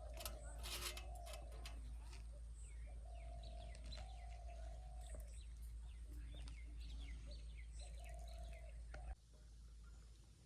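Birds chirping, with short calls throughout, over a steady low rumble that drops off abruptly near the end.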